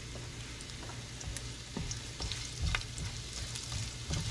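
Julienned ginger sizzling and crackling in hot oil in a nonstick pan. In the second half a silicone spatula stirs it around the pan, adding a few soft knocks.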